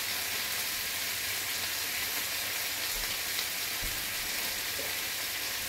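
Thick-cut bacon frying in a skillet on a gas burner, giving a steady sizzle.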